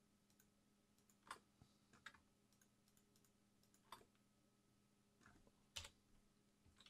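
Faint, scattered clicks of a computer keyboard and mouse, about six in all at uneven intervals, over near silence.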